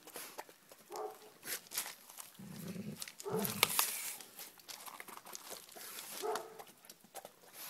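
Doberman snuffling and nosing at a hedgehog rolled into a ball, its paws and muzzle crunching and clicking on gravel. Short low huffs come twice, a little before and after the middle.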